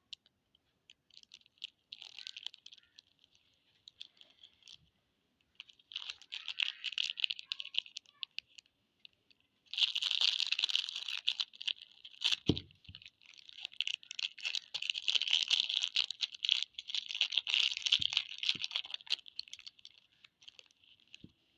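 Plastic chocolate-bar wrappers crinkling and tearing as they are handled and opened, in several crackly bursts that get louder from about halfway in. A single dull thump near the middle.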